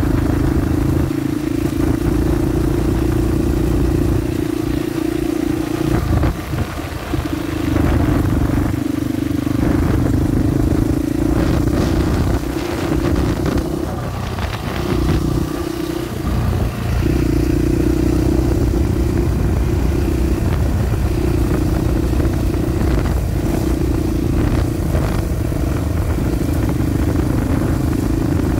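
YCF 88 pit bike's small single-cylinder four-stroke engine running while being ridden: a steady drone that drops off briefly a few times, with some rattling along the way.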